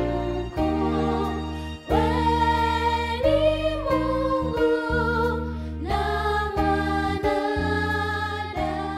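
Gospel music with sustained electronic keyboard chords and a singing voice holding a wavering melody line.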